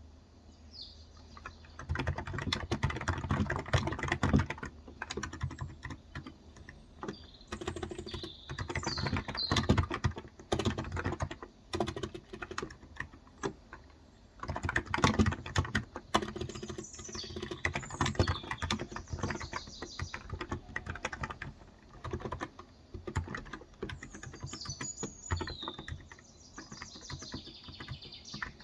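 Typing on a Cox Endeavor tenkeyless keyboard with 35 g electrostatic capacitive (contactless) switches, in bursts of rapid keystrokes separated by short pauses. Birds chirp in the background several times.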